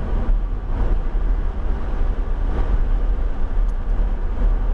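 Lamborghini Huracán's V10 engine running steadily under light throttle, heard inside the cabin together with road and wind noise as a dense, even low drone.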